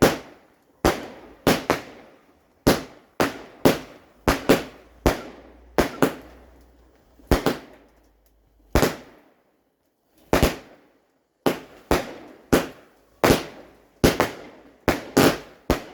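A rapid, irregular string of firework bangs, about two dozen sharp cracks in quick succession with a short pause midway. Each bang trails off briefly.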